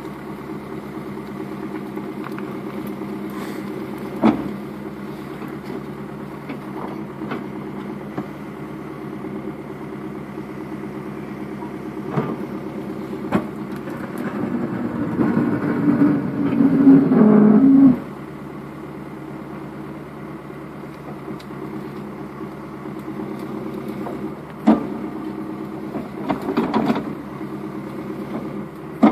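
Backhoe engine running steadily, with a few sharp knocks; about halfway through it revs up louder under load for a few seconds, then drops back suddenly.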